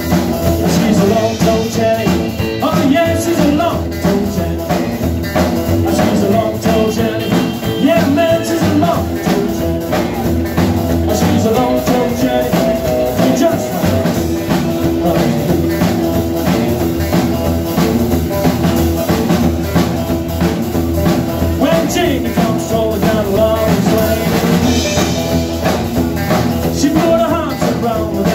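A small rock and roll band playing live: upright double bass, acoustic guitar, electric guitar and drum kit keeping a steady beat, with a man singing.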